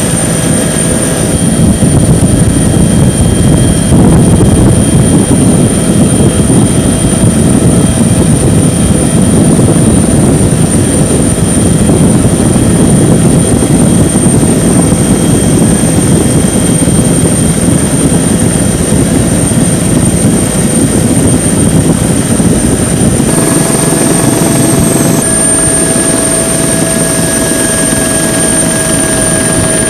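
Helicopter engine and rotor noise, a dense low noise with several steady high whines over it. About 23 seconds in, the whines shift in pitch and the low noise eases a little.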